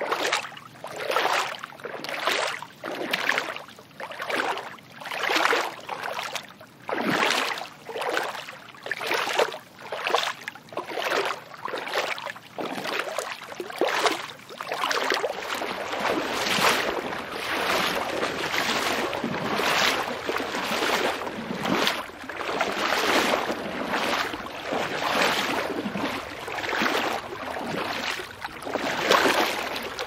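Footsteps wading through water, each step a splash, about one a second. About halfway through the splashes come quicker and run together.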